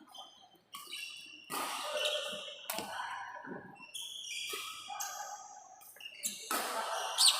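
Badminton rally: a series of sharp hits about a second apart as rackets strike the shuttlecock, with players' shoes moving on the court between them.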